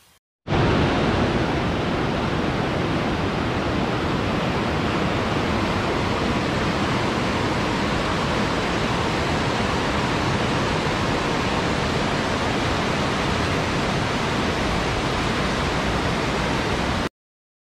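Steady, even rush of water, like a waterfall, with no waves or pauses; it cuts in abruptly and cuts off abruptly near the end.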